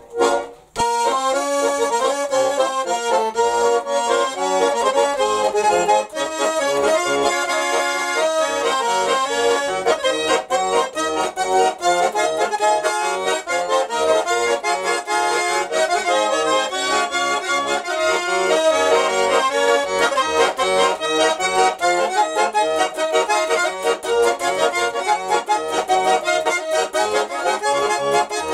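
A garmon, the Russian button accordion, being played: a tune of quick melody notes over held chords, starting about a second in and running on without a break.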